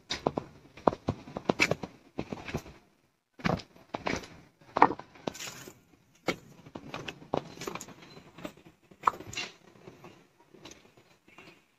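Footsteps going down a flight of steps: irregular scuffs and taps of shoes on the treads, with a short pause about three seconds in.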